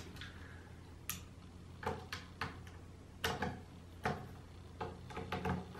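Scope mount being fastened to a Daisy 880 air rifle's receiver with a screwdriver: a dozen or so small, irregular metal clicks and taps from the screwdriver, screws and mount.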